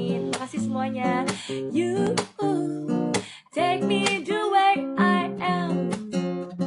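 Acoustic guitar strummed in chords, with a wordless vocal line wavering over it in the middle and a brief break about halfway through.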